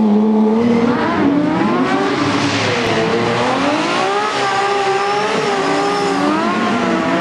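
Race car engines revving up and down as they are driven hard through corners, the pitch rising and falling repeatedly.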